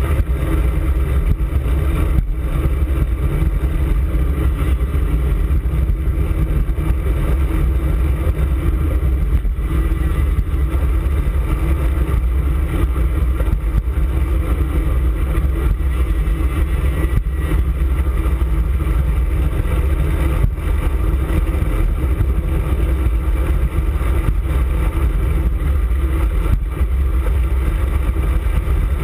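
Wind rushing over the microphone of a handlebar-mounted camera on a moving road bike, mixed with tyre and road noise: a steady, loud low rumble with a few faint knocks.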